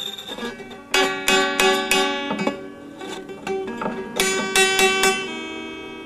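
Acoustic guitar strings plucked by a sulphur-crested cockatoo's beak. Two irregular flurries of plucks come about a second in and again about four seconds in, the notes left ringing.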